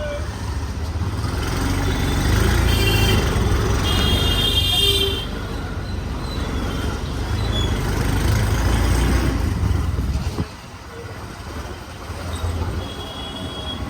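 Street traffic with engines running and vehicle horns tooting, the horns clustered about three to five seconds in and once more near the end; the traffic sound falls away for a couple of seconds partway through.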